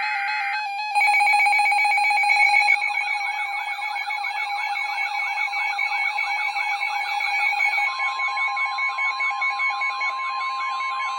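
Several emergency alert tones sounding over one another: a rapidly pulsing beep tone and warbling, siren-like sweeps. About eight seconds in, a steady single alert tone joins them.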